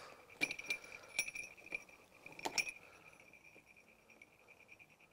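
Small metal jingle bells jingling and clinking as they are handled and hooked by their wire rings onto a lion dance head. A few sharp clinks come in the first three seconds over a thin, steady bell ring, and then it goes quieter.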